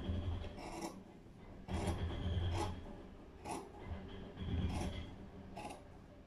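Fabric scissors cutting through cloth laid on a wooden table, the blades closing in short rasping snips about once a second, six times in all.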